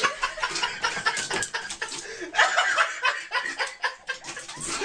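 People laughing, in short choppy bursts.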